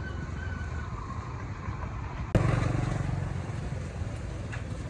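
Steady low rumble of motor traffic in an open-air market. The sound jumps abruptly louder a little past halfway, then slowly eases back.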